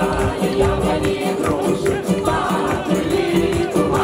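Music: a group of voices singing together over a steady shaken-percussion beat.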